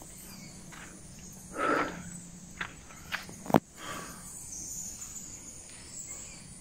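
Footsteps on a dirt-and-stone path, a few irregular steps with one sharp click about three and a half seconds in, over a steady high chirring of insects.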